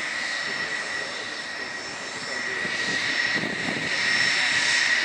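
Jet airliner turbine whine: a steady high-pitched tone over a rushing hiss, growing louder over the last couple of seconds.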